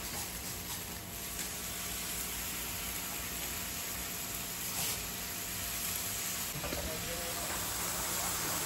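Chicken sizzling with a steady hiss on the hot plate of a CUSIMAX electric smokeless grill, under the steady hum of the grill's built-in fan. A few light clicks come from the stainless steel tongs as the pieces are turned.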